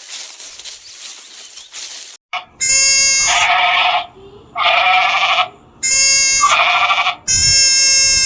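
A bleating farm animal gives four loud, bleating calls, each about a second long, starting about two and a half seconds in. Before the calls there is a soft hiss.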